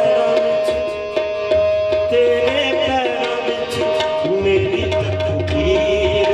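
Live qawwali music: harmonium notes held steadily over a quick run of tabla strokes.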